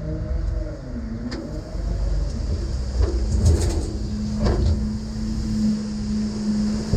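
Diesel engine of a heavy earthmoving machine running. Its pitch dips and rises over the first second or so, then it holds a steady hum. Sharp knocks come about a second in and again around three and four and a half seconds in.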